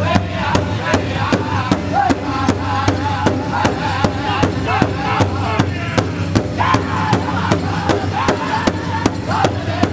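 Powwow drum group singing together around one large shared hide drum, the drummers striking it in unison in a steady, even beat of about two and a half strokes a second under high-pitched group singing.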